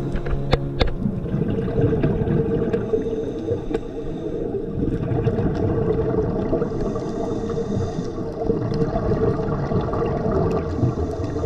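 Muffled underwater rushing and gurgling of water and bubbles on a scuba dive, with a few sharp clicks in the first second.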